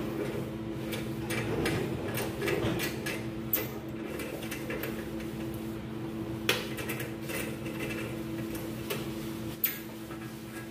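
Scattered metallic clicks and knocks as the safety clamp screws on a stainless steel autoclave lid are worked loose by hand, over a steady low hum.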